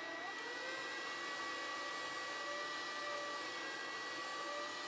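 Steady whir of a small electric motor with a faint, slightly wavering whine: the drill that spins the lathe, turning the walnut spindle while oil is rubbed on with a cloth.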